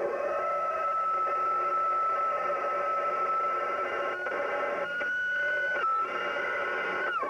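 A long striped horn blown as one long, steady note. About five seconds in the pitch steps up briefly, then drops back, and the note falls away at the end as the breath runs out.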